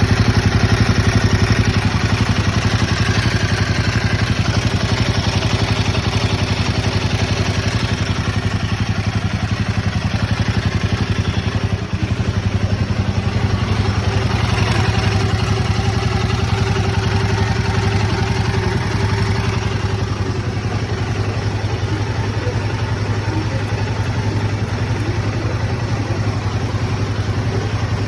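Royal Enfield Himalayan 452's single-cylinder engine idling steadily with a fast ticking clatter from the valve train, which the owner takes for tappet and valve noise.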